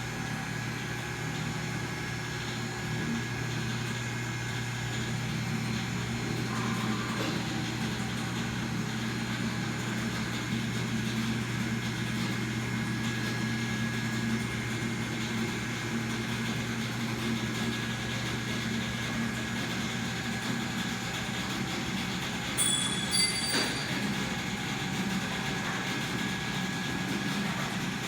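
Steady hum and hiss of welding-shop machinery, with a constant low mains-type drone and a few held tones. A brief cluster of high-pitched chirps comes about three-quarters of the way through.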